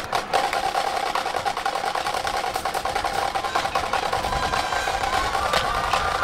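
High school marching drumline playing a fast percussion feature: rapid, dense drum strokes and rolls. Near the end a lower wash of sound with a few sliding tones builds under the drumming.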